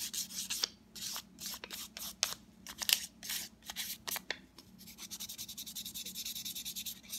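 Fine 1000-grit sandpaper rubbed by hand over a wooden revolver grip panel, smoothing out the scratch lines left by 500 grit. It starts as a few irregular scratchy strokes, then about two-thirds in settles into quick, even back-and-forth rubbing.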